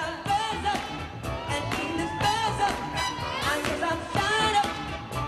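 Dance music with singing and a steady drum beat, played for locking dancers.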